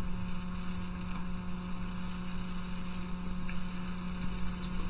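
Steady low electrical mains hum with a few faint clicks.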